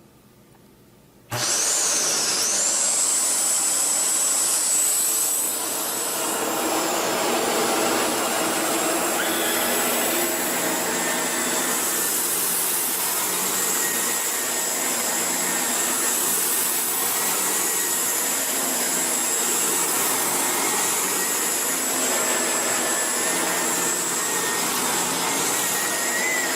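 Shark NV501 Rotator upright vacuum switching on about a second in, then running steadily with a loud motor noise and a high whine.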